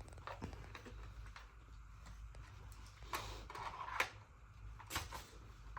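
Plastic Nerf blaster parts being handled and fitted together: small clicks and knocks, a louder scraping rustle about three seconds in, and sharp clicks about four and five seconds in.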